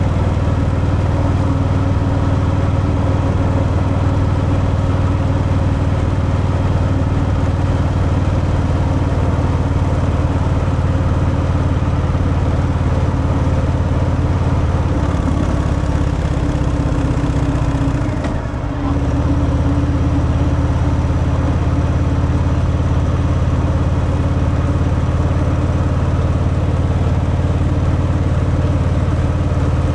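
Harley-Davidson Fat Boy's V-twin engine running through its stock exhaust, a steady even note while the bike is ridden. About eighteen seconds in the engine pitch drops and the sound dips briefly, then the steady note comes back.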